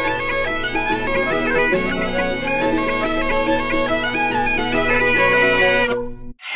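Bagpipe music: a steady low drone under a moving chanter melody, which cuts off abruptly about six seconds in.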